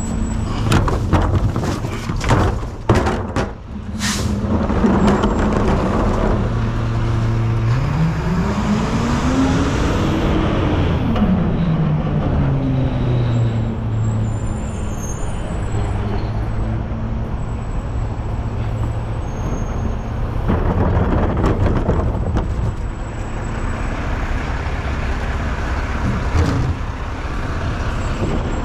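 Recycling collection truck's engine running with a steady hum, revving up once and back down about eight seconds in. Sharp knocks and clatter in the first few seconds.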